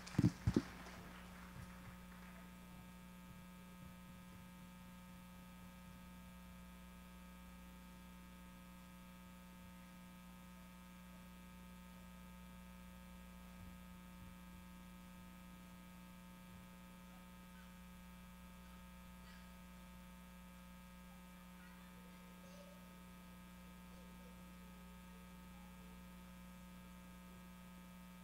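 Steady electrical mains hum from the hall's sound system, a low buzz with a row of fainter higher tones above it. Two sharp thumps come about half a second in.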